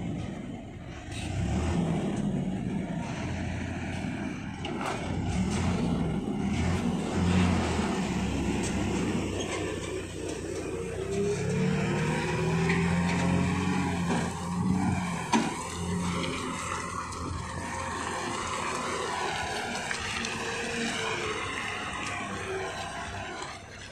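Diesel engines of heavy lorries running at low revs as they turn through a tight hairpin bend, the engine note shifting up and down. A short sharp click sounds about fifteen seconds in.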